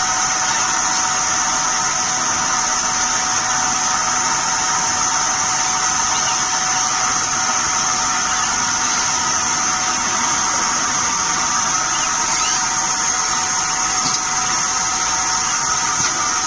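Steady machinery noise from a PCB router production line: a constant high hiss with steady whining tones underneath, unchanging while the robot arm loads and unloads the boards.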